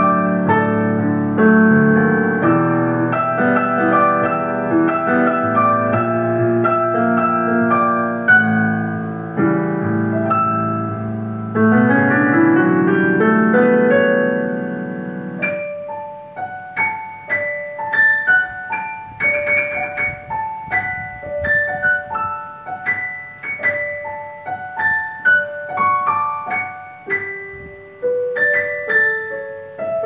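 Dexibell VIVO H3 digital piano played through its own built-in speakers: full chords over a low bass, a rising run about twelve seconds in, then a sparser, quieter passage of single higher notes.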